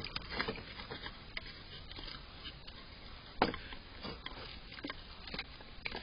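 A groundhog nosing into and tugging at a hanging wooden bird feeder: scattered small clicks and taps of wood, with one louder knock about three and a half seconds in.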